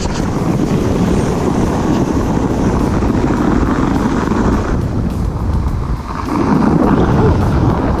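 Rubber snow tube sliding fast down a groomed snow slope: a steady rush of snow scraping under the tube and wind buffeting the microphone. The rush dips briefly about three-quarters of the way through, then picks up again.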